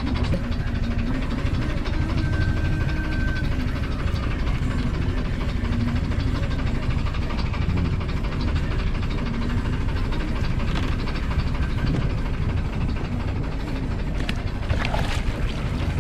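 Steady low rumble on board a fishing boat at sea, with a few light clicks near the end.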